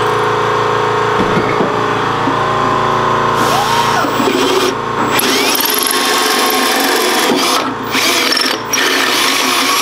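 Electric drill running steadily as it bores through metal, briefly easing off twice near the end.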